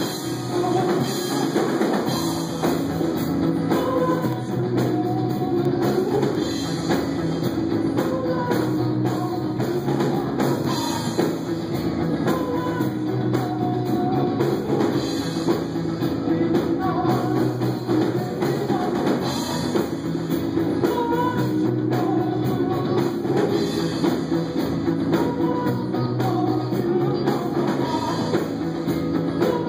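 Noise-pop band playing a song live, with a drum kit keeping a steady beat under singing and instruments.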